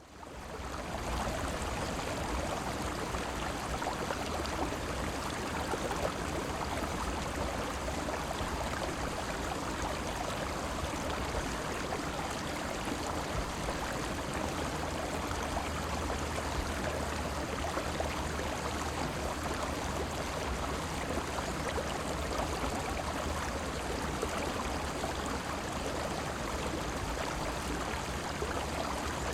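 River water gurgling and rushing, a steady flow that fades in over the first second and then holds even.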